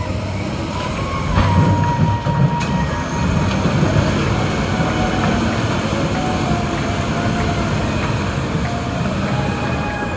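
Heavy rock-crushing machinery running: a steady grinding rumble with metallic squeals and a couple of sharp knocks.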